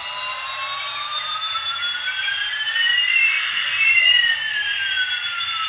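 Battery-powered toy airliner's electronic sound effect: a siren-like pair of slow pitch glides, one rising and one falling, crossing about three and a half seconds in.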